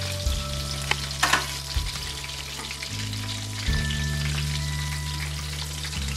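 Coconut-and-flour-coated chicken drumsticks frying in a pan of hot coconut oil: a steady sizzle with crackling pops, a few louder ones about a second in.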